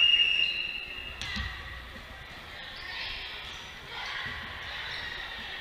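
A referee's whistle blows one steady blast, the signal to serve, and about a second later comes the sharp smack of a hand striking a volleyball on the serve.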